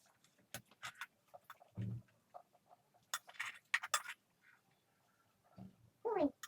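Eating sounds close to the microphone: irregular wet smacks and clicks of chewing, with a short low hum about two seconds in and a brief falling vocal sound near the end.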